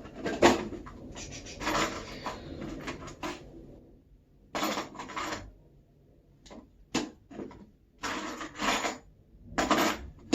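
Metal hand tools clattering and scraping as someone rummages through a toolbox: a string of irregular knocks and scrapes with short quiet gaps.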